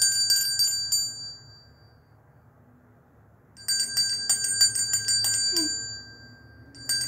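A hand bell shaken quickly, its clapper ball striking the metal several times a second. It rings in three bouts separated by short pauses.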